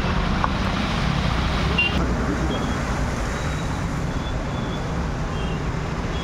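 Road traffic driving through floodwater: car and motorbike engines running with a steady low rumble. About two seconds in the sound changes abruptly to a slightly quieter, steady low rumble.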